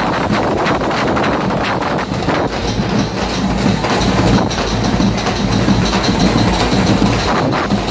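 Loud din of a Ganesha immersion street procession: a dense wash of noise with frequent irregular sharp hits over a steady low hum.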